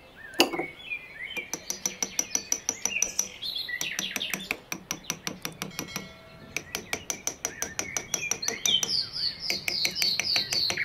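Bird chirps mixed with a fast train of sharp clicks, several a second.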